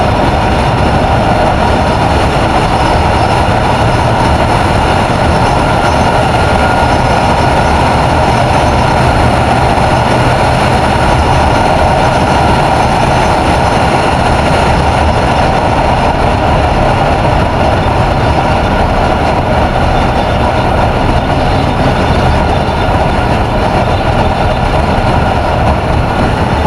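Steady rush of wind and road noise from a TVS Ntorq 125 scooter ridden at highway speed, about 65 to 90 km/h, with its single-cylinder engine running under it.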